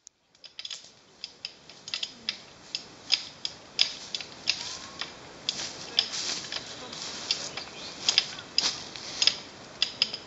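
Ratchet of a hand winch on a horse-drawn timber trailer clicking in a long, uneven run of sharp clicks, about two to three a second, as it is worked.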